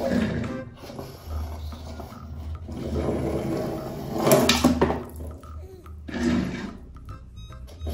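A small toy car pushed across a hard ledge, then splashing into a tub of water about four and a half seconds in, followed by water sloshing.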